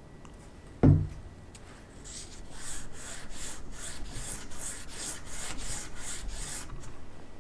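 400-grit silicon carbide abrasive paper rubbed back and forth over an aluminum beam, about three rasping strokes a second, for the finish abrasion that roughens and cleans the surface for bonding a strain gauge. There is a single thump about a second in, before the strokes start.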